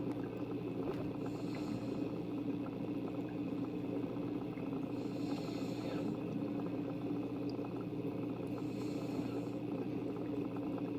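A person snoring, a breath about every three and a half seconds, over a steady low hum.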